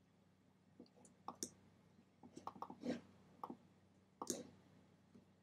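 Faint, scattered computer mouse clicks, a handful of sharp single clicks, the loudest near the middle and about four seconds in, over a faint steady low hum.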